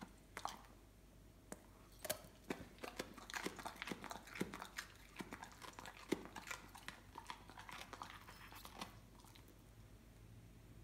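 Weimaraner crunching and chewing raw cabbage, a faint, irregular run of crisp crunches that thins out near the end.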